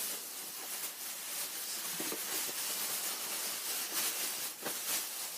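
Faint, steady hissing noise with a few soft ticks.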